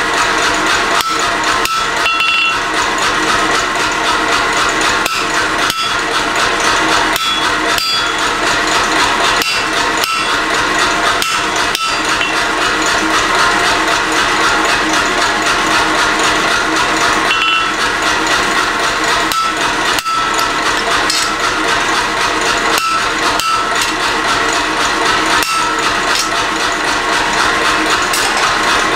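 Repeated hammer blows driving a cutting chisel into a white-hot wrought iron bar on the anvil, splitting the end to cut the cleft for a cleft weld, with short metallic rings among the strikes over a dense steady noise.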